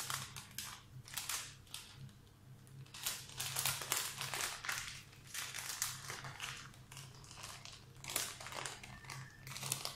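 Parchment baking paper rustling and crinkling in a series of short bursts as it is lifted to roll up a sponge cake.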